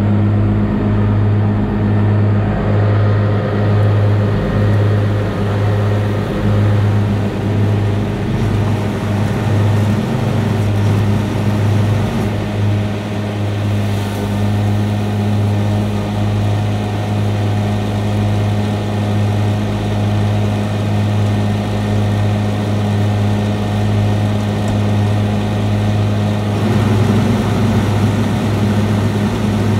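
Massey Ferguson 6180 tractor's straight-piped six-cylinder diesel engine running at steady working revs under mowing load: a deep, even drone with no let-up.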